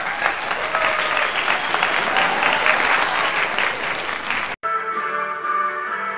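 Applause, a dense patter of many hands clapping, for about four and a half seconds. It cuts off abruptly into music with held notes.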